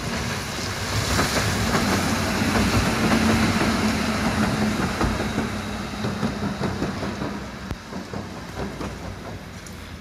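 Electric tram passing by, its wheels clicking over the rails under a steady motor hum. It grows loudest a few seconds in, then fades as it moves away.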